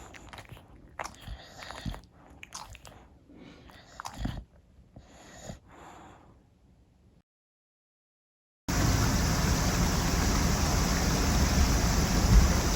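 Irregular wet clicks and crunches, a bulldog chewing, for the first several seconds. After about a second and a half of dead silence, a loud, steady rushing noise begins abruptly.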